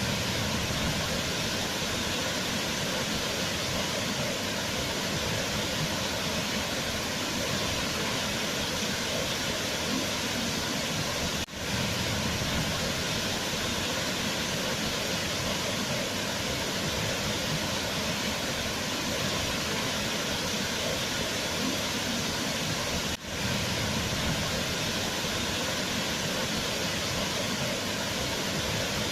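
Waterfall: a steady, even rush of falling water. The level dips briefly twice, about eleven and a half seconds apart.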